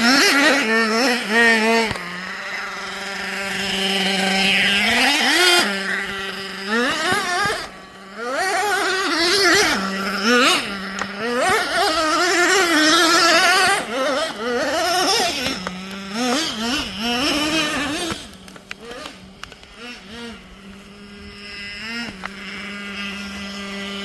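Small nitro RC engine running at a high idle, its pitch repeatedly wavering up and falling back between stretches of steady idle. It is odd 'jato' sounds which the owner puts down to the idle being set too high.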